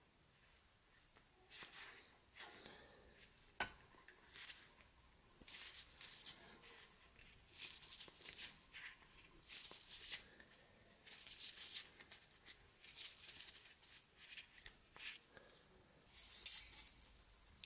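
Steel scissor blades and a tap wrench being handled: faint, irregular metal clicks and short scrapes, with one sharp click about three and a half seconds in.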